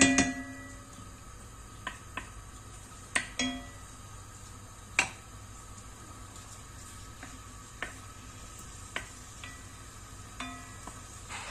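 Wooden spoon stirring chicken pieces as they brown in fat in an enamelled pot, knocking against the pot about ten times; the loudest knock comes at the start, and a few ring briefly. A steady faint sizzle of the frying runs underneath.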